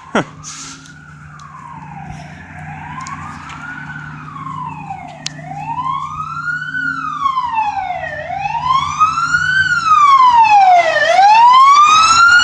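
Emergency vehicle siren on a wail, its pitch rising and falling about every three seconds, growing steadily louder as it approaches.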